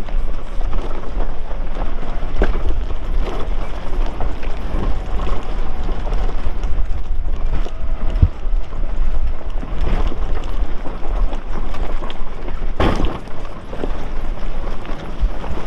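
Lifted Nissan R50 Pathfinder crawling over rocks: a steady low rumble from the running vehicle, broken by scattered knocks and clunks from tyres and suspension meeting rock. One louder knock comes about thirteen seconds in.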